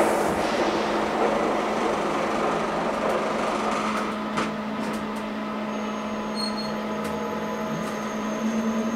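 Glass-walled station elevator descending: a steady motor hum runs throughout. A broad rumble fills the first few seconds and then fades out.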